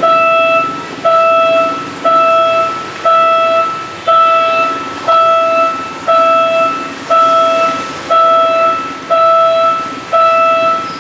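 Railway level-crossing warning bell ringing about once a second, each stroke a single pitched tone that starts sharply and fades. A low rumble runs beneath it.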